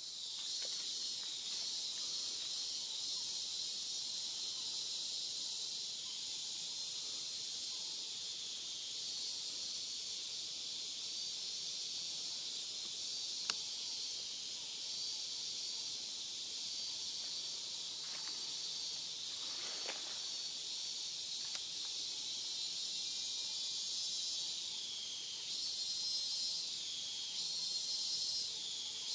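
Steady, high-pitched chorus of forest insects, a dense shrill hiss that wavers slightly near the end. One sharp click about halfway through.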